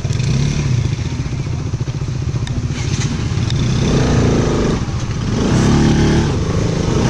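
Bajaj Pulsar RS200 motorcycle engine running as the bike is ridden, the revs rising about four seconds in and again near six seconds.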